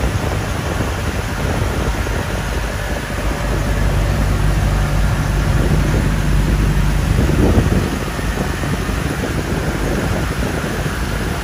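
Boat engine running steadily while under way, with wind noise over it.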